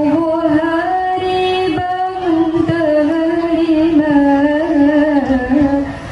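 A young woman singing a syair (chanted Malay verse) solo into a microphone. She holds long, wavering notes, with a short break for breath about two seconds in.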